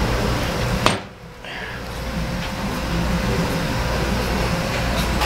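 Steady workshop background noise with a low hum. About a second in it is broken by a sharp click and a brief drop in level, then the same steady noise resumes.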